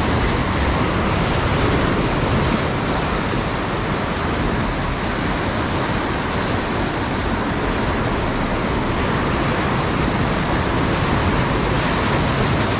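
Steady, even wash of ocean surf breaking on the beach.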